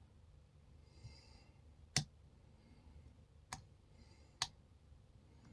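Lock pick working the pins of a Hugo GTA38 aluminium padlock held in a false set: three sharp, separate clicks about a second apart from the pick and pins inside the core.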